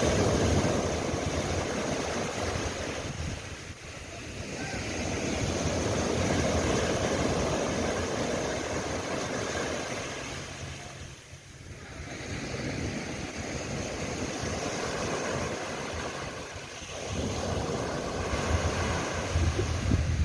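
Sea waves breaking and washing up a sandy beach. The surf swells and recedes in long surges several seconds apart.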